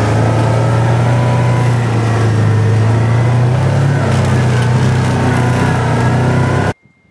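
Kawasaki Teryx 800 side-by-side, fitted with snow tracks, driving through snow with its V-twin engine running steadily, heard from inside the cab. The engine note shifts slightly about four seconds in, and the sound cuts off suddenly near the end.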